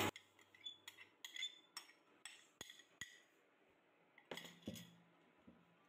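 Faint light clinks and taps of a spoon on a glass bowl as roasted vermicelli is scraped out into a pan of milk: a scattered run of short clicks, then a couple more near the end.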